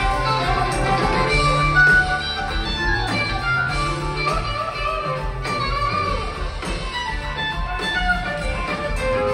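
A live rock band playing an instrumental jam, with electric guitar to the fore over drums and keyboards.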